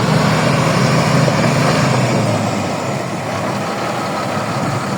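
A heavy engine running steadily with a low hum, easing off a little about two seconds in.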